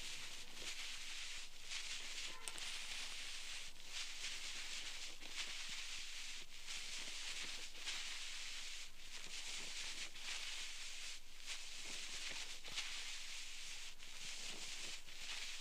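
Close-miked ear pick scraping inside an ear canal: a steady scratchy hiss in strokes of about a second each, with brief breaks between them.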